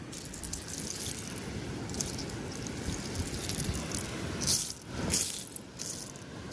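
Loose seashells clinking and rattling as a hand sifts through a pile of shells and dry sea grass, with a louder clatter twice near the end. A low rumble runs underneath.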